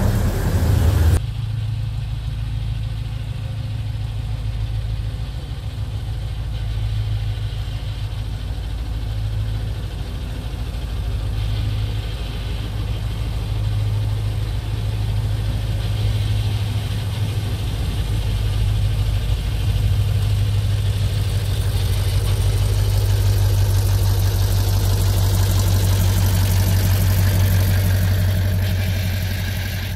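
Vintage Plymouth diesel mine locomotive's engine running steadily with a deep hum as it hauls ore cars out of the adit. It grows louder in the second half as the locomotive comes out of the tunnel, then fades near the end.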